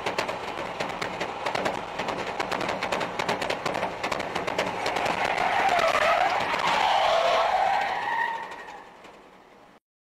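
Car tyres squealing in a skid at speed, a loud wavering squeal that rises out of rapid crackling road noise about halfway through, then fades and cuts off abruptly near the end.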